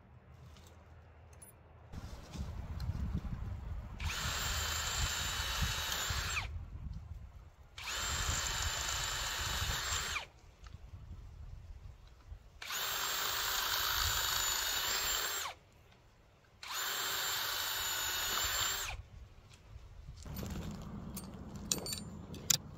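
Cordless drill running at steady full speed into the wooden ties of a miniature railway track, in four runs of two to three seconds each with short pauses between.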